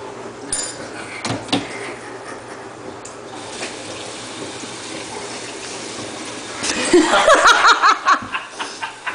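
Kitchen sink faucet running, water splashing into the sink in a steady hiss. Loud voices break in over it near the end.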